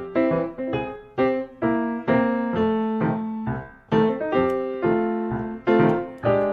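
Background music: a piano playing a gentle melody of separate notes, each struck and then fading.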